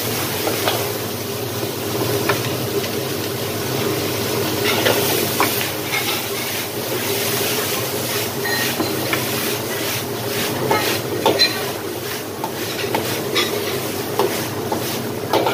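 Stir-frying in a steel wok over a commercial gas wok burner: the burner's steady rushing noise and the food sizzling, with the metal ladle scraping and clanking against the wok at irregular moments throughout.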